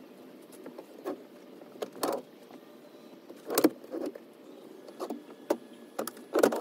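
Second-row swivel seat in a Kia Carnival being turned by hand: a string of separate clicks and knocks from the seat and its base, the loudest a little past the middle and near the end.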